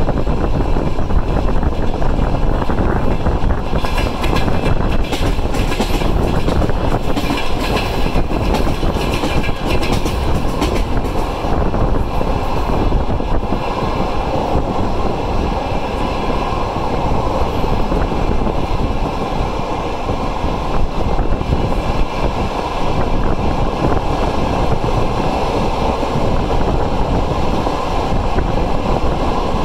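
Passenger train running at speed, heard from a carriage window: a steady rumble of wheels on rails, with a stretch of sharp clicking in the first half as the wheels pass over rail joints.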